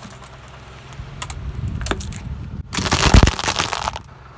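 Car tyre rolling slowly over a plastic bottle on asphalt: a low rumble, then loud cracking and crackling for over a second as the plastic is crushed.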